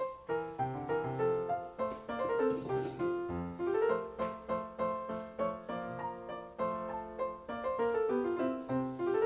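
Background piano music: a gentle flowing melody of rippling broken chords with a steady pulse.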